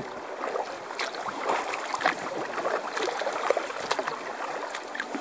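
Choppy lake water slapping and splashing against a moving kayak's hull, in a steady wash with irregular sharper splashes.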